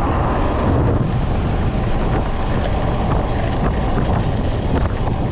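Wind buffeting the microphone of a camera on a moving road bike, a steady rumble mixed with tyre noise on the tarmac; an oncoming car swishes past near the start.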